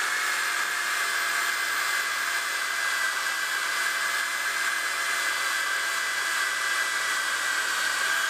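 DeWalt random orbital sander running steadily with a fine-grit disc against the steel head of a hatchet: a steady high whine over a hiss.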